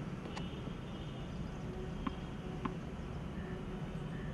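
Outdoor ambience: a steady low rumble with a few faint ticks and brief high chirps.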